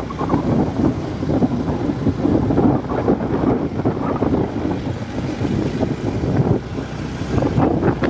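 Wind buffeting the microphone on a moving motorcycle, with the bike's engine running underneath.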